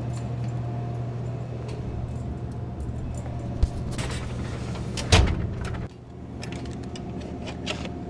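Clicks and metal knocks from handling a snack vending machine's bill validator and pulling out its cash box, over a steady low hum. One louder clack comes about five seconds in, and the hum drops soon after.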